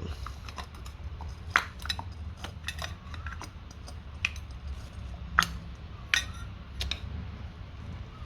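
Irregular metallic clinks and taps, several sharp knocks spaced about half a second to a second apart, a couple ringing briefly, as tools work at the inside of a brass water meter being dismantled for scrap.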